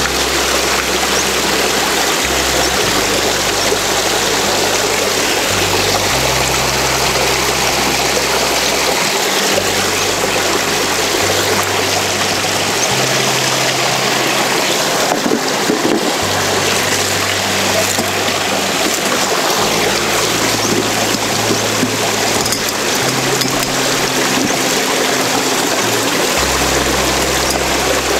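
Small rocky stream running steadily over stones, an even wash of water noise. Underneath it, a low background music line changes note every second or two.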